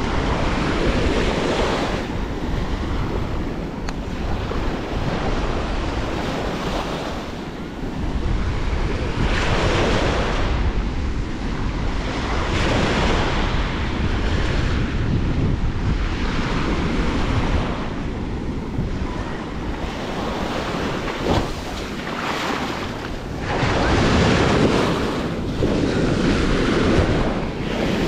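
Small waves breaking and washing up a sandy beach, the surf swelling and ebbing every few seconds, with wind rumbling on the microphone.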